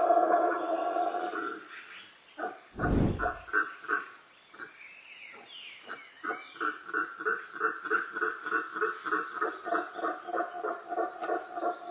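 A frog croaking in a quick, even rhythm of about three to four croaks a second, starting about halfway through, with faint high chirps above it. Before that a held, pitched call fades out, and a single deep thud sounds about three seconds in.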